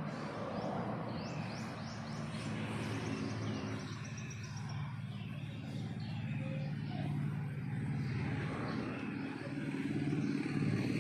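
Birds chirping in quick falling notes during the first few seconds, over a steady low engine-like hum that runs throughout.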